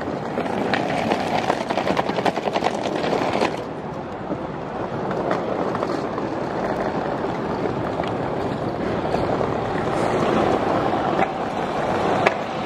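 Steady city-street noise: a loud, even rush of traffic and outdoor air, with a few faint knocks.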